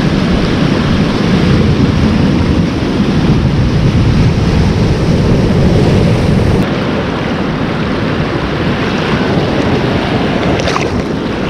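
Sea surf breaking and washing over tidal rocks, with wind buffeting the microphone: a loud, steady wash of noise.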